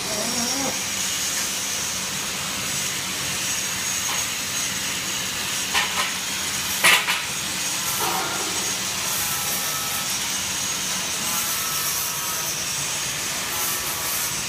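Steady hiss with a low hum, like machinery running in a workshop, with two sharp knocks about six and seven seconds in.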